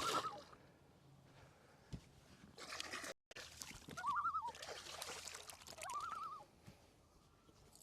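Water splashing and trickling, with three short warbling calls over it.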